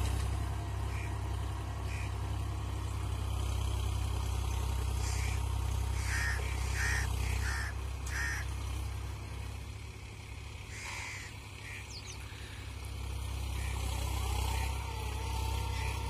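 Distant tractor engine running steadily as it pulls a tillage implement across the field. It is a low drone that eases off for a few seconds in the middle.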